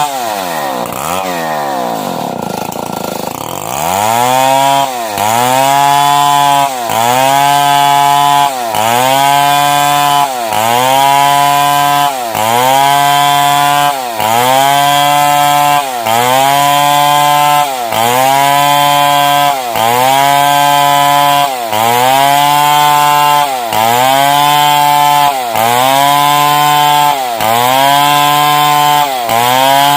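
Stihl 070 two-stroke chainsaw cutting lengthwise through a timber beam. Its revs sag in the first few seconds, then from about four seconds in it runs at high revs with a short dip in pitch and loudness roughly every two seconds, about fourteen times.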